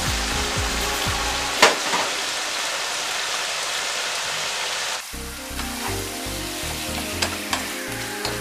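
Pork pieces sizzling in hot oil in a frying pan, with one sharp click about one and a half seconds in. About five seconds in, the sizzle turns quieter and a wooden spoon stirs the meat, with light scraping clicks against the pan.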